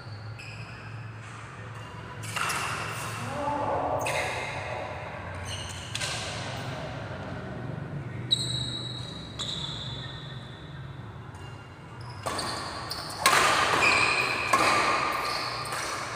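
Badminton rackets striking a shuttlecock in a rally: sharp hits every second or two, ringing in a large hall, with the hardest hits in the last few seconds. A steady low hum runs underneath.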